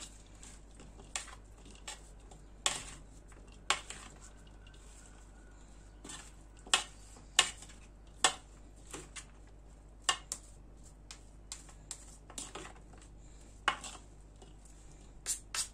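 Orzo pasta salad tossed lightly in a large bowl with a spoon: about twenty irregularly spaced clicks and knocks of the spoon against the bowl.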